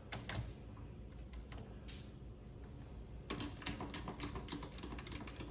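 Vevor MX 400 mini lathe facing off the end of a bar: a few light clicks, then from about three seconds in a rapid, fine, irregular ticking and crackling as the cutting tool takes the cut.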